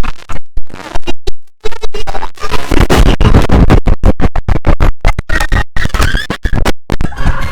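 IBM OS/2 Warp 3 shutdown sound heavily distorted by stacked audio effects. It plays loud, chopped into rapid stutters with abrupt cuts and scratch-like glitches.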